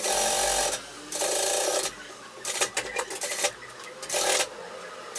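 Sewing machine stitching suede knit fabric in short runs: three runs of about a second each, stopping and starting between them.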